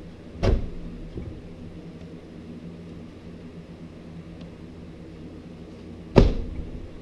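Two sharp wooden knocks, a plywood sill piece being set or tapped into place at the window frame: one about half a second in and one near the end. Under them a steady low hum runs throughout.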